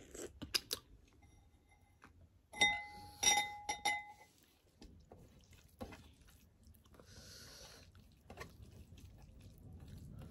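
Someone eating a meal: quiet chewing and small clicks, with a few clinks on a plate around three seconds in that ring briefly.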